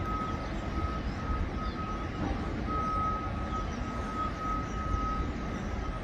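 A construction vehicle's reversing alarm beeps repeatedly with a single high tone. It is heard at a distance over a steady low rumble of building-site noise.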